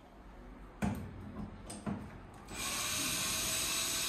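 A few short knocks and clatters, then about two and a half seconds in a cordless drill starts and runs steadily, unscrewing a wire-shelf standard from the wall.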